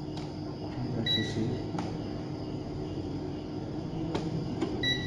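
Short, high, pure beeps from a digital multimeter's buzzer, one about a second in and another near the end, among a few faint clicks over a steady background hum.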